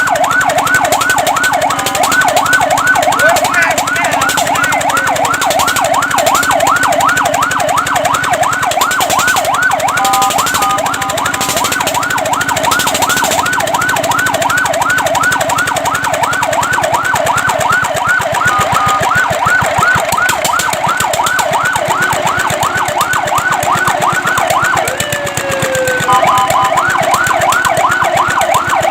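Fire truck's electronic siren wailing in a fast yelp, its pitch sweeping up and down about five times a second, briefly giving way to steady tones about a third of the way in and again near the end.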